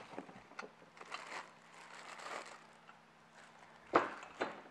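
Plastic packaging crinkling and rustling as parts are lifted out of a cardboard box, with a sharp knock about four seconds in as a bagged part is set down on the table.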